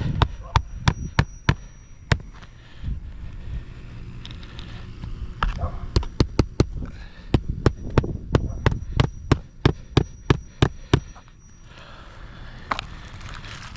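Hammer driving roofing nails into a replacement asphalt shingle: sharp strikes in quick runs of several, about three a second, with pauses between runs.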